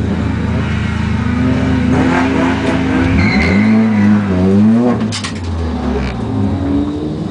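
Competition car's engine heard from inside the cabin, accelerating hard through the slalom, its pitch climbing and then rising and falling repeatedly with throttle and gear changes. A brief high squeal comes about three seconds in.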